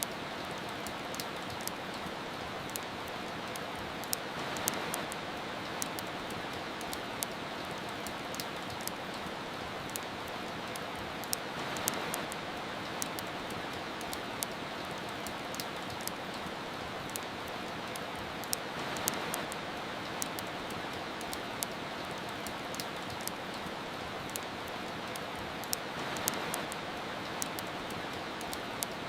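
Steady soft rain with frequent small sharp crackles of a wood fire scattered through it. The rain swells briefly about every seven seconds.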